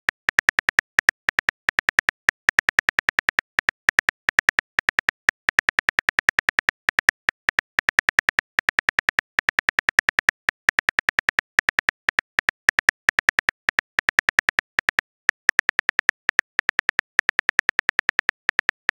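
Phone on-screen keyboard click sound effect: rapid taps of a message being typed letter by letter, several clicks a second with brief pauses.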